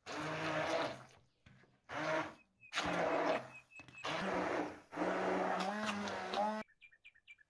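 Immersion (stick) blender run in five short bursts, puréeing cauliflower florets and egg in a plastic bowl. The motor hum rises slightly in pitch during the last, longest run, then cuts off abruptly near the end.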